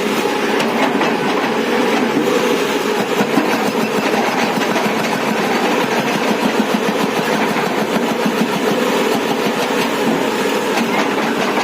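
JCB JS215 tracked excavator working, its diesel engine running steadily under a dense, even mechanical noise.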